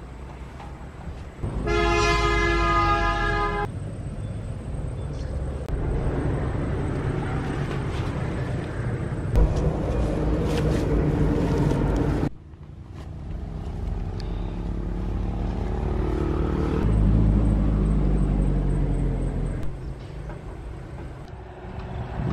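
A vehicle horn blares for about two seconds, followed by road traffic as engines pass, swelling and fading. The sound breaks off abruptly partway through, and passing-vehicle noise then builds again.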